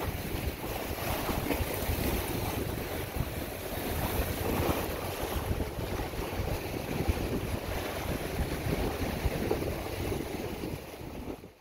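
Small sea waves washing and splashing against shoreline rocks, with wind buffeting the microphone; it fades out at the very end.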